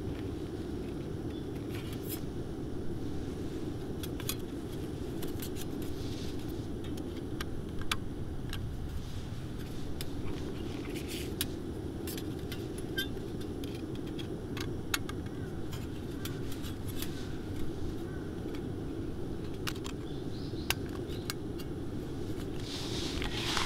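Thin stainless-steel plates of a folding Tetra Drip coffee dripper clicking and clinking against each other while being handled, with a plastic bag crinkling, loudest near the end. These sharp clicks sit over steady low background noise.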